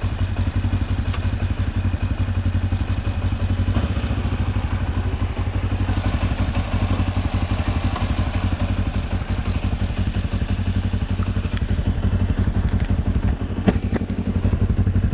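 Kawasaki KLE 400's parallel-twin engine running at low, steady revs, with light clatter and one sharp knock near the end.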